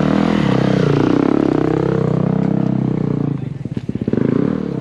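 Dirt bike engine revving up and down, its pitch rising and falling, then dropping about three and a half seconds in to a slow, pulsing low-rev run.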